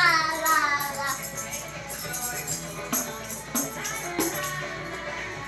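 A pop song with singing plays, while a tambourine is struck and shaken along with it in a few sharp hits.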